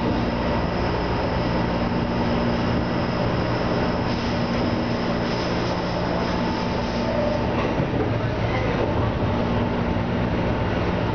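Seibu Railway electric commuter train running along single track, heard from inside the front car behind the cab: a steady rumble of wheels on rail with a steady hum that fades out briefly past the middle.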